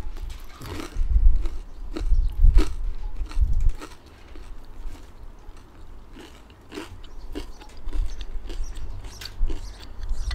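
Close-up eating: crisp crunching bites and chewing of fried pita chips, with sharp crunches over the first few seconds, quieter chewing in the middle and more crunches near the end.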